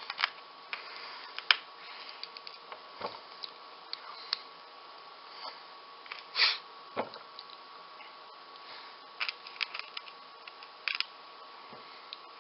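Small plastic LEGO bricks clicking and tapping as they are handled and pressed together: irregular short clicks, with a louder scrape about six and a half seconds in, over a faint steady high tone.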